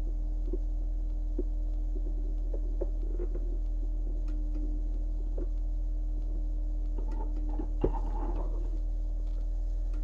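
Steady electrical hum with small scattered clicks and taps as a resistor's bent legs are fitted onto a power supply board, and one sharper click about eight seconds in.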